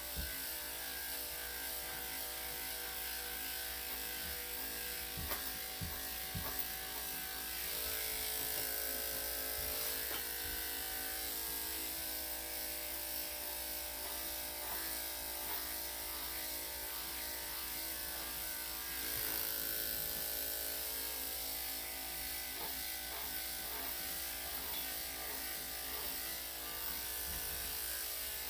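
Electric dog grooming clippers running steadily: a constant buzzing hum, with a few faint clicks about a quarter of the way in.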